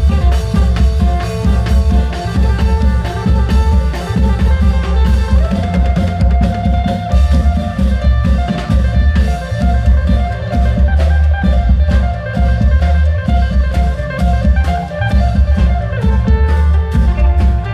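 Thai klong yao long-drum ensemble playing, amplified: a heavy, continuous drum beat with dense percussion strikes and a sustained melodic line over it.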